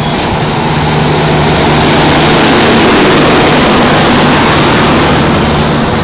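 LHB passenger coaches of an express train rolling past close by at low speed: steady wheel-on-rail rumble and rushing noise with a low steady hum underneath.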